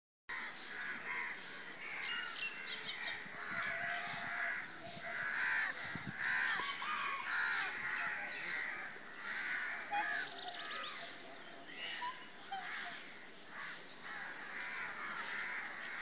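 Many birds calling at once, a dense chorus of short overlapping calls and chirps with no pause.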